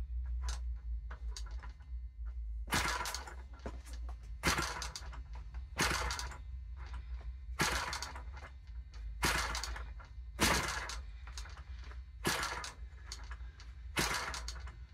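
Propeller of a Saito four-stroke model glow engine being flicked over by hand, about eight sharp snaps spaced a second and a half to two seconds apart; the engine does not catch.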